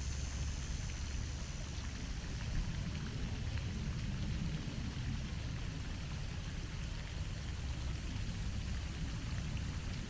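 Pond fountain's vertical water jet spraying up and falling back onto the water, a steady rain-like splashing hiss, with a low steady rumble underneath.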